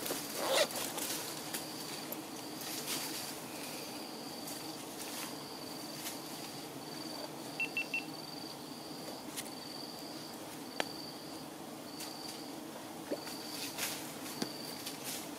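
A steady series of short, high insect calls, a bit more than one a second, over a low steady hum of giant honey bees, with scattered clicks and rustles.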